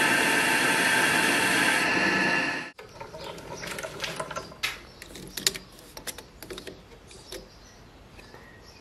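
Homemade lathe running while a boring bar cuts inside a steel ring: a steady whirring cut with a high whine, cut off abruptly about two and a half seconds in. Then light, scattered clicks and taps as a digital caliper is handled and set into the bore.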